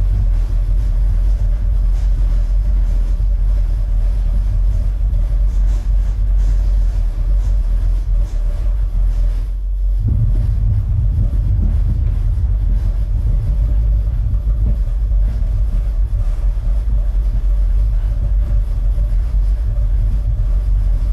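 Deep, steady bass rumble of a movie soundtrack played loud in a living room, driven by a Klipsch R10SW subwoofer refitted with a Martin Logan Dynamo 700W driver. The rumble cuts out briefly just before ten seconds in, then comes back.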